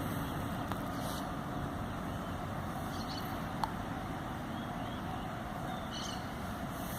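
Steady low background rumble with a few faint, brief high bird chirps about three and six seconds in.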